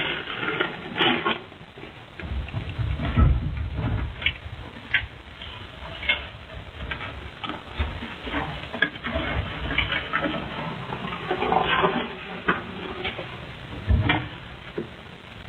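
Rustling and scattered clicks and knocks of mail and mailboxes being handled, picked up by a security camera's tinny microphone, with a couple of low thumps.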